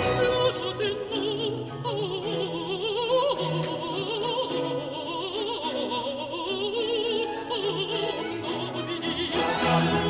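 Baroque sacred music by a period ensemble: a contralto sings a slow, ornamented line with vibrato over strings and continuo. The fuller ensemble swells back in near the end.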